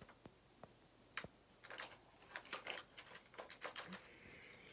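Faint clicking and rattling of fishing lures being picked through in a clear plastic tackle box, with one sharper click about a second in and a run of light clicks after it.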